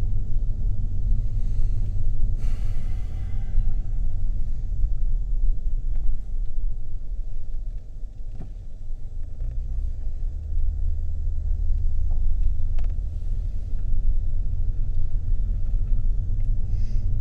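Low, steady rumble of a car's cabin while driving slowly: engine and road noise, dipping briefly about halfway through, with a short hiss a few seconds in.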